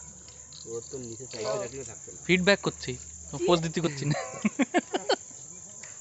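A steady high-pitched insect drone, with several short snatches of people's voices between about two and five seconds in.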